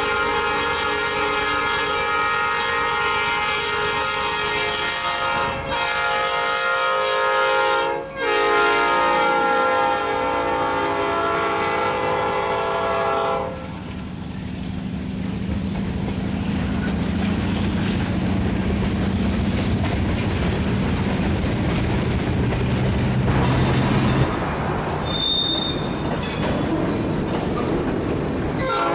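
Air horn of an EMD switcher locomotive sounding a chord in three blasts, the last one long, as the train approaches. The horn stops about halfway, and the diesel engine and then the clay slurry tank cars and covered hoppers roll past with a steady clatter over the rail joints, and a brief high wheel squeal near the end.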